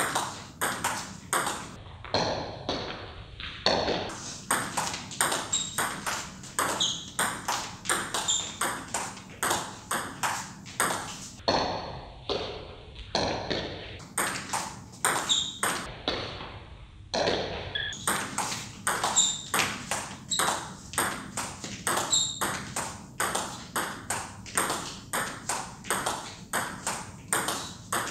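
Table tennis rally: the ball clicking off the bats and bouncing on the table in a quick, even back-and-forth rhythm, several hits a second, as chopped defensive returns meet attacking strokes close to the table. There are a couple of short breaks where a rally stops and restarts.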